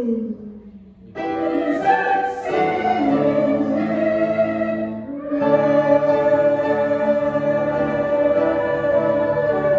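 Musical-theatre cast singing together in chorus with instrumental accompaniment. The full ensemble comes in about a second in and holds long sustained chords from about five seconds in.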